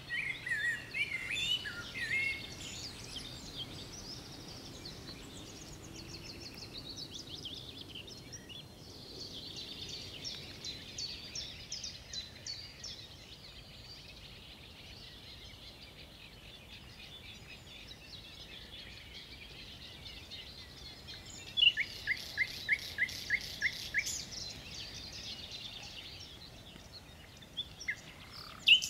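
Songbirds singing: varied phrases and fast high trills, with a louder run of about eight evenly repeated notes roughly three-quarters of the way through.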